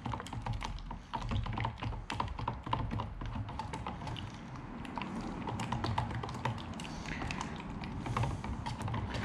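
Stir stick scraping and tapping around the sides of a container of floor finish during mixing: a rapid, irregular run of light clicks and scrapes.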